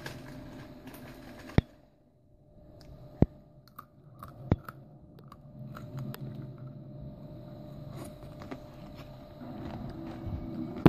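Rustling and rubbing handling noise from a handheld phone moving against fabric, with three loud sharp clicks and scattered small ticks.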